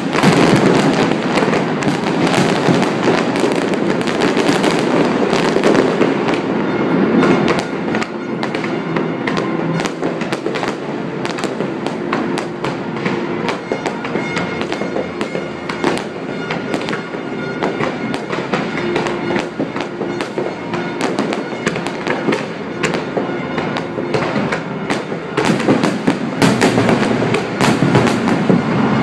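Aerial fireworks display: a dense, continuous barrage of bangs and crackling bursts, heaviest at the start and again near the end, with music underneath.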